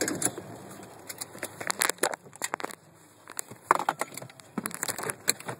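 Handling noise from a hand-held camera being moved about: a rapid, irregular run of clicks, knocks and rustles as the person gets out of the car.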